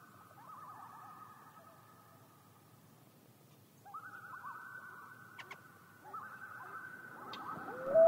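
Common loon tremolo calls, a rapid quavering laugh: a faint one about half a second in, then louder ones about four and six seconds in. Near the end a louder call begins, rising in pitch.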